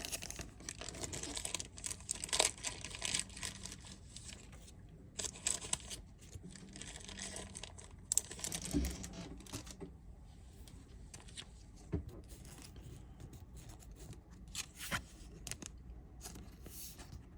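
Thin plastic booster-pack wrapper crinkling and tearing in bursts, with trading cards being handled; later it thins out to scattered small clicks and taps.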